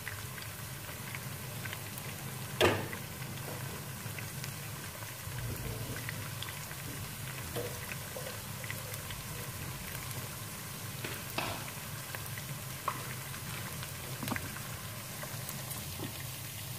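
Sliced onions and whole spices frying in oil in a pot on high flame: a steady sizzle, broken by a few sharp clicks, the loudest about two and a half seconds in.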